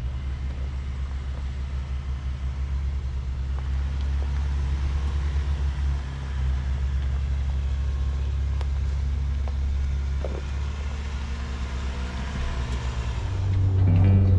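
Off-road vehicle driving on a trail: a steady low engine and drivetrain drone with rushing road noise. Music comes in near the end.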